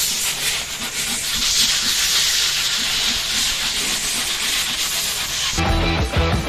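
Body filler putty being sanded down on a car body panel: a steady hiss. Rock music cuts in abruptly near the end.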